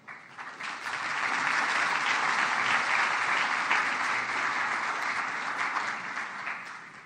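A large audience applauding, the clapping swelling over the first second and dying away near the end.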